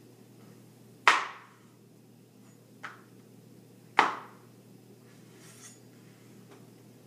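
A knife chopping through potatoes onto a cutting board: two loud, sharp chops about a second and four seconds in, with a fainter tap between them, over a steady low hum.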